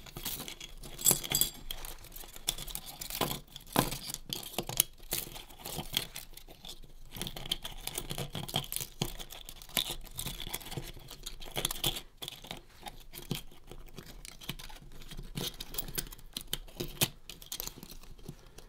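Irregular small clicks, taps and scrapes of a repaired spring and its small metal spool being handled and fitted back together by hand.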